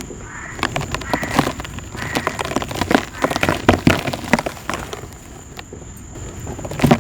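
Dry black dirt crumbling: a dense run of crisp, gritty crackles and crunches that eases off for a moment past the middle, then picks up again near the end.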